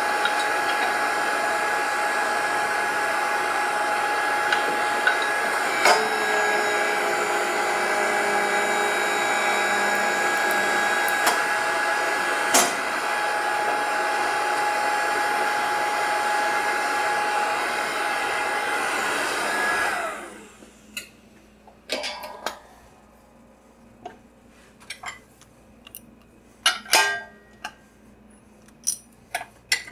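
Powered pipe bender's hydraulic pump motor running with a steady whine for about twenty seconds while the ram bends a tube, then shutting off. Scattered metallic clinks follow as the bent tube is handled in the bender.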